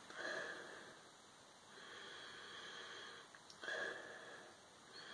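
A person sniffing a glass of beer to take in its aroma: three soft, breathy sniffs through the nose.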